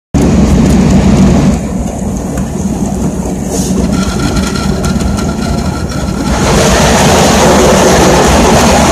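TU2 narrow-gauge diesel locomotive's V12 diesel engine running, heard from the cab: a steady low drone that drops back after about a second and a half and grows louder and brighter again about six seconds in.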